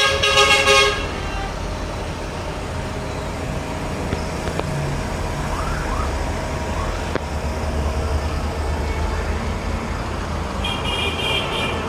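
A vehicle horn toots loudly for about a second at the start and again briefly near the end, over a steady low rumble of vehicle engines and traffic.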